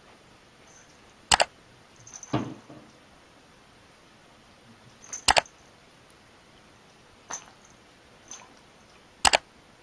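A handful of sharp taps over a faint steady hiss, spaced irregularly a second or more apart, some coming in quick pairs.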